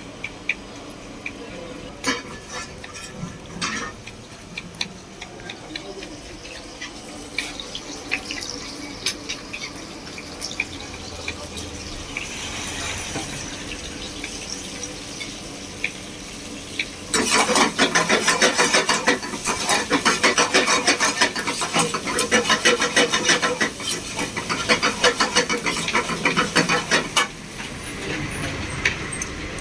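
Scattered sharp knife taps on a cutting board as tomatoes are cut. About seventeen seconds in, a loud, choppy rush of splashing water starts and runs for about ten seconds before dropping back.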